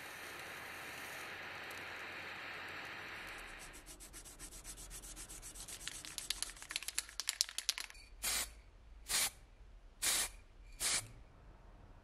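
A small handheld gas torch's flame hissing steadily while it heats solder on a small metal part, cutting off about three and a half seconds in. Then quick scratchy rubbing of abrasive paper on the metal, followed by four short swishes about a second apart.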